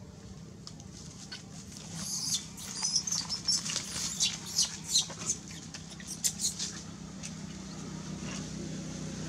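Macaque giving a rapid series of short, high-pitched squeaks, starting about two seconds in and stopping about five seconds later.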